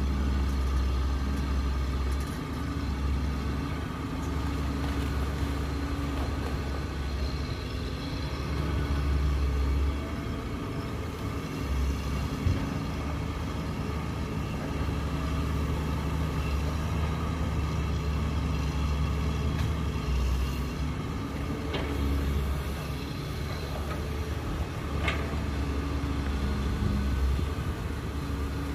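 Diesel engine of a Caterpillar 322C hydraulic excavator running under changing load as it digs and swings, its low rumble swelling and easing every few seconds. A few sharp knocks come through.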